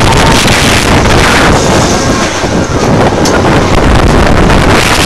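Loud wind buffeting on the microphone, a dense rumbling rush with no break.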